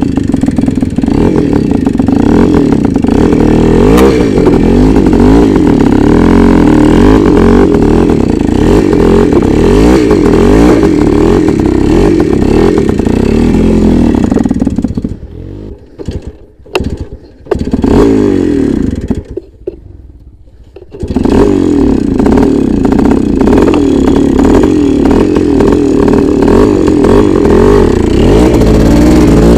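Voskhod 3M-01 motorcycle's small two-stroke single-cylinder engine running loud, its pitch rising and falling as it is ridden hard through deep mud. About halfway through the engine sound drops away for several seconds, with a couple of short bursts, then comes back and runs on.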